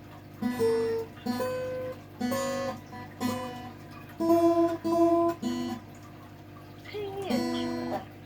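Acoustic guitar being tuned: single plucked notes and pairs of strings sounded in turn with short pauses, the same notes repeated several times, and one string sliding down in pitch about seven seconds in. The guitar is out of tune.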